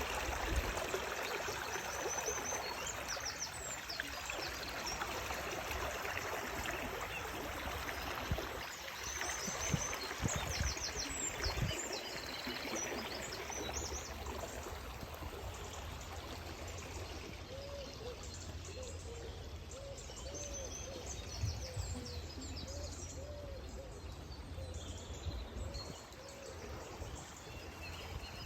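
River water flowing steadily, with birds chirping at intervals and a lower, repeated bird call in the second half.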